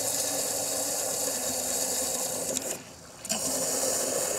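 Water from a garden hose rushing through the Citroën C6's cooling system as it is flushed out. It makes a steady hiss that cuts out briefly about two-thirds of the way in and then starts again.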